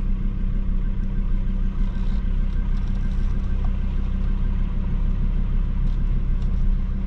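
A four-wheel drive's engine running at low, steady revs with a deep drone while the vehicle drives slowly through a shallow river crossing.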